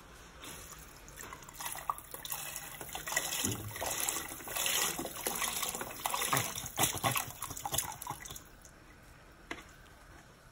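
Chicken broth pouring from a carton into a pot of soup, a splashing stream that stops about eight seconds in.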